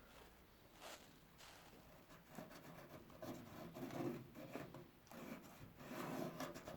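Brown paper being handled and marked as a repair-panel template: irregular rustling and scratching, louder in the second half.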